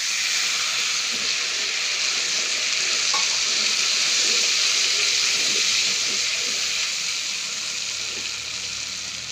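Evaporated cream poured into a hot pan of butter, garlic and curry leaves, sizzling hard the instant it hits, then easing off a little toward the end.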